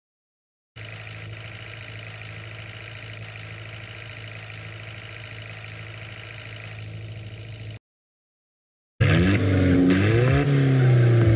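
Vehicle engine sound effect: a steady engine hum starting about a second in and cutting off suddenly near eight seconds, then after a second of silence a louder engine revving, its pitch rising and falling.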